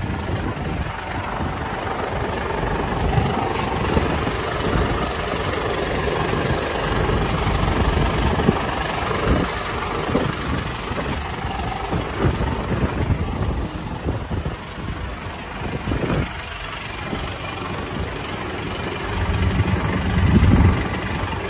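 Mitsubishi Fuso heavy truck's diesel engine idling steadily, heard around the chassis, getting louder near the end as the microphone comes up to the exhaust tailpipe.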